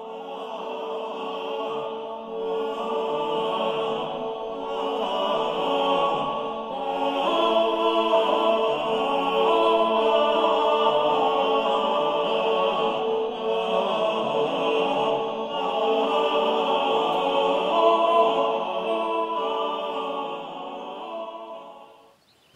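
Background music of voices singing slow, sustained chant-like chords over one steady held note, fading out near the end.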